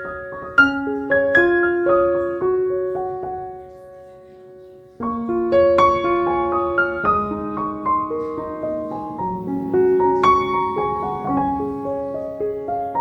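Background piano music, with soft melodic notes; it fades out about four seconds in and starts again abruptly a second later.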